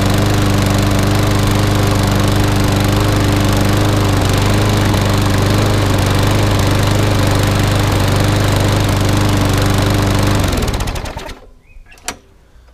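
Briggs & Stratton single-cylinder lawnmower engine running at a steady speed, freshly cleared of oil in its carburettor and burning off the excess oil. About ten seconds in, it slows and dies away.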